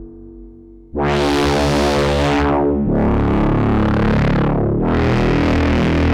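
Eowave Quadrantid Swarm hybrid synthesizer playing a step-sequenced pattern. A fading tail gives way, about a second in, to three long, bright notes of about two seconds each, the pitch changing with each step.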